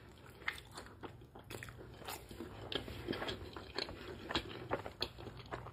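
A person chewing a bite of crispy deep-fried egg roll, with a scattered run of many small, sharp crunches.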